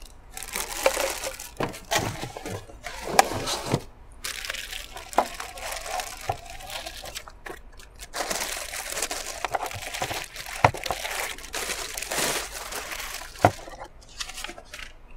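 Clear plastic wrapping crinkling and rustling as it is pulled off a small LED flood light, with a few sharp knocks from the light being handled on the table.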